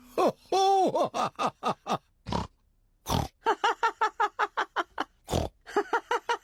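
Cartoon pig characters laughing in quick short bursts, broken by three loud pig snorts.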